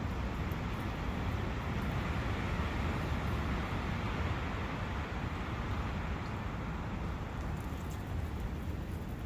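Steady wind through a forest over a brook's running water: a low rumble under an even hiss, swelling slightly a few seconds in.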